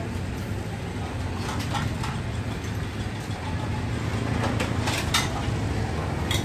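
Street ambience: a steady low rumble of traffic, with scattered sharp clicks and clinks.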